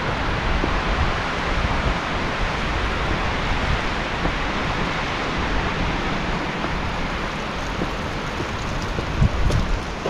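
Wind blowing through forest trees, a steady rush of rustling leaves, with wind rumbling on the microphone. A few low bumps near the end.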